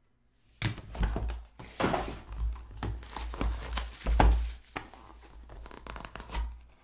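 Plastic shrink-wrap being torn and crinkled off a sealed trading-card box, with light bumps of the box on the table. It starts about half a second in and is loudest about four seconds in.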